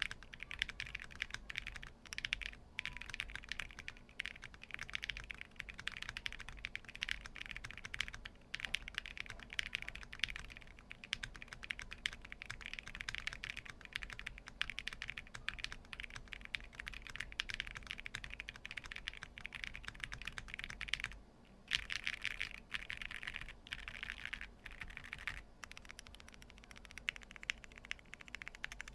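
Continuous typing on a mechanical keyboard fitted with Akko Rosewood switches: a dense, steady stream of key clicks, with a brief pause about two-thirds of the way through.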